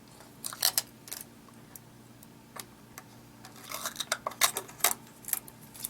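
Hands handling a plastic tail light housing and peeling stickers off it: a scatter of light clicks, taps and crinkles, busiest in the second half.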